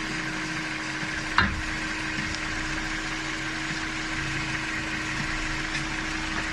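Volvo V70 engine running steadily, with one sharp clunk about a second and a half in: the drive shaft noise that comes when changing gears.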